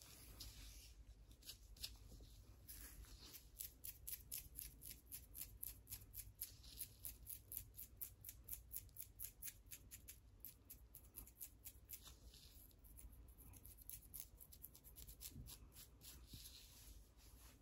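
Fingernails scratching a dandruff-flaked scalp through thick hair: quick, dry, scratchy strokes, about four a second through the middle, then softer and sparser near the end.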